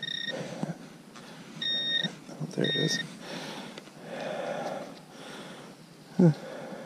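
Metal detector beeping on a target: three short, steady high-pitched beeps in the first three seconds, the first ending just after the start. Gloved hands then rub and crumble a clod of frozen soil with a soft rustle, and a short, loud low sound follows near the end.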